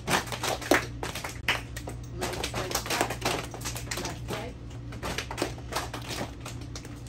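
Scattered, irregular taps and clicks from several students at their desks, over a steady low hum.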